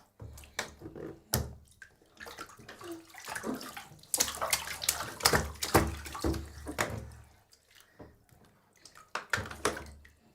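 Bathwater splashing and sloshing in a tub as a baby plays, in irregular splashes that are busiest through the middle and come again near the end.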